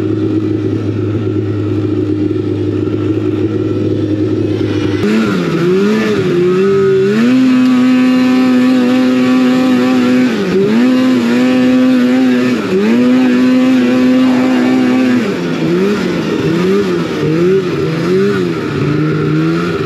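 Old Polaris RMK snowmobile's two-stroke twin engine under way. It runs at a steady pitch for about five seconds, then revs up and down repeatedly, holding high revs for a couple of seconds at a time, with quicker rises and falls near the end.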